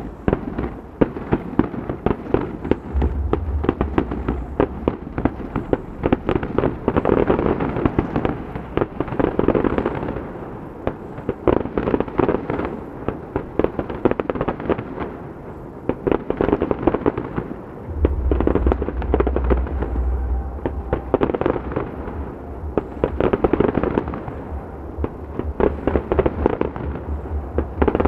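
Fireworks display going off in dense volleys of rapid bangs and crackles that swell and ease in waves. A low steady hum runs underneath from about eighteen seconds on.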